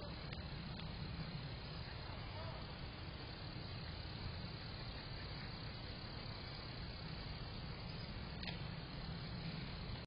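Steady outdoor background hiss and low rumble with a constant high-pitched tone, and a few faint clicks about a second in and near the end; the crow does not call.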